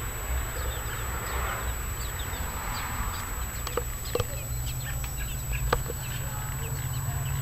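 Birds chirping: many short, high, falling chirps throughout, over a steady low rumble. A few sharp clicks come about four seconds in and again near six seconds.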